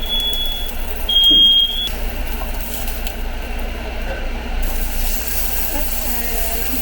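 Household smoke alarm sounding two long, piercing high beeps in the first two seconds, set off by smoke from cooking steak. It then falls silent, leaving a steady hiss of the steak sizzling in the pan.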